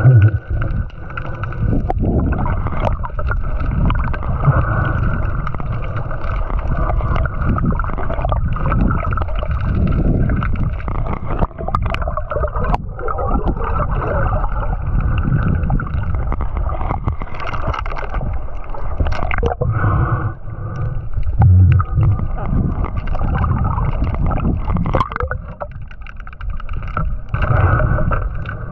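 Muffled underwater water noise picked up by a camera carried by a swimming spearfisher: constant rushing and gurgling of water, with scattered clicks and knocks.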